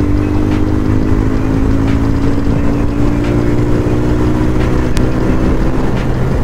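Bajaj Pulsar 220F's single-cylinder engine running under way at cruising speed, its note sinking slowly as the bike eases off a little, over a low rush of wind.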